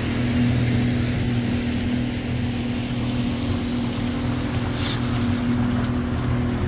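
Small fishing boat's engine running steadily under way, a constant drone with the hiss of water and wind over it.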